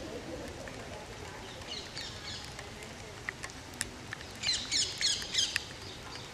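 Songbirds chirping and singing outdoors, with scattered short high calls and a quick, louder run of chirps about four and a half seconds in.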